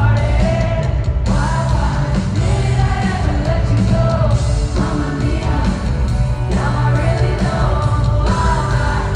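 Loud pop music with a singing voice over a heavy bass beat.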